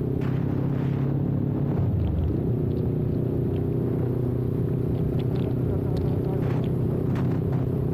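Kawasaki Ninja 400's parallel-twin engine running under way. The engine note is steady and shifts in pitch about two seconds in, then holds.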